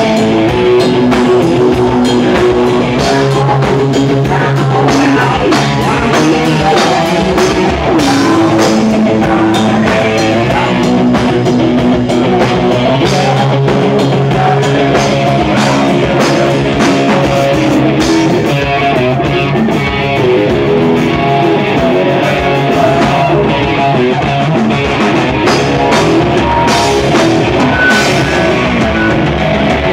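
A rock band playing live and loud: electric guitar and drum kit over a steady beat.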